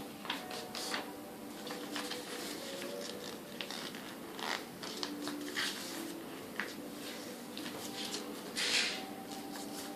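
A paper airplane being folded in half and creased by hand: a string of short paper crinkles and rustles, with a longer scrape along the crease about nine seconds in.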